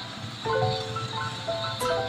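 Background music: a repeating melody of short, steady notes stepping between set pitches.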